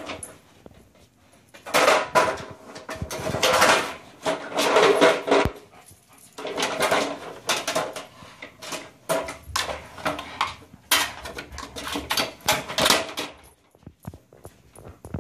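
A German shepherd playing with a toy dump truck: the truck knocks, scrapes and rattles as the dog mouths and shoves it, along with the dog's own noises. It comes in bursts with short pauses between.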